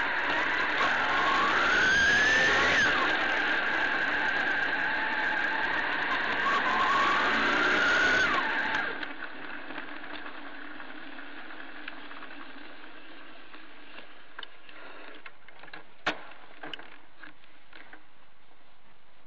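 Honda CBR600F inline-four engine revving as the motorcycle accelerates, its pitch climbing twice. About nine seconds in, the sound cuts to a quieter steady hum with a few faint clicks and one sharp tick.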